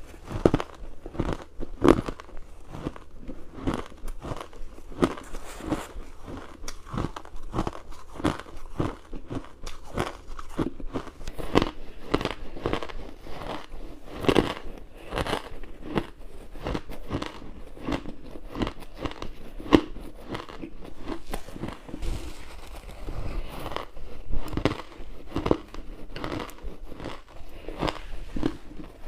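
Close-miked crunchy ice being bitten and chewed: a rapid run of sharp crunches and cracks, several a second.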